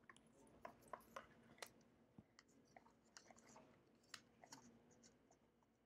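Near silence with faint, scattered small clicks and crackles from handling the cardstock parts of a paper lamp kit and its cable connector.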